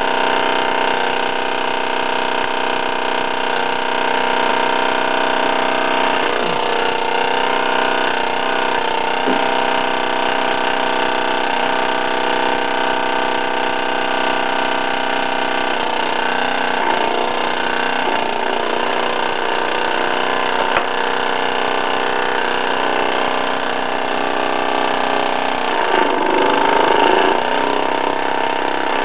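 Small Stuart Turner steam engine plant in steam, giving a steady hiss and whirr. The sound shifts briefly a few times and grows a little louder about 26 seconds in.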